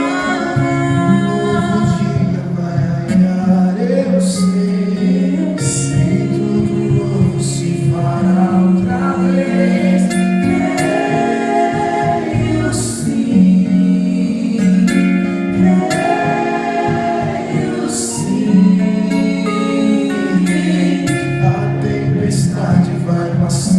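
Music with singing over sustained chords, a steady bass and light cymbal strokes.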